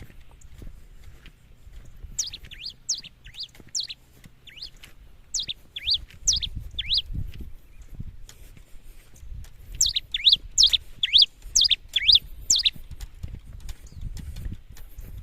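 Pileated finch (cravina) singing: three bursts of quick, high, down-slurred notes, the last about 10 seconds in the longest and loudest.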